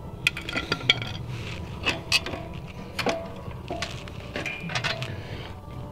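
Light metal-on-metal clinks and taps of a hand tool and loose bolts against the rusty brake backing plate and axle end of a Ford 9-inch rear axle being taken apart. The clinks come irregularly, some ringing briefly.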